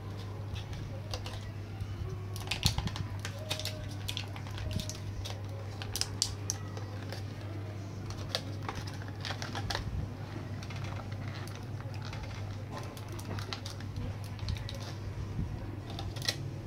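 Scattered light clicks and taps as the Crucial DDR3 SODIMM memory modules are handled, over a steady low hum.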